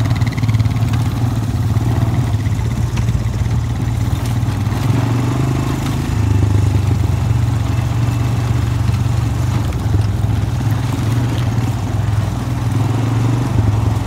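ATV engine running at a steady pace while driving over rough dirt ground.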